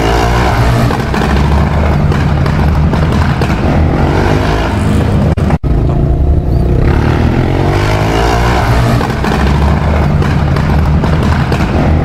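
Motorcycle, labelled a Kawasaki KLR, with a very loud exhaust, revving up and down repeatedly as it rides, heard from a car following behind. The sound drops out for an instant about five and a half seconds in.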